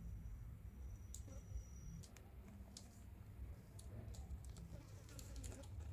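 Quiet background with a steady low rumble and scattered faint clicks and ticks, more of them in the second half; a faint thin high tone runs through the first two seconds.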